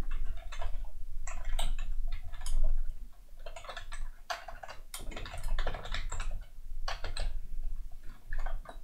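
Typing on a computer keyboard: keystrokes in quick, irregular runs with short pauses between them.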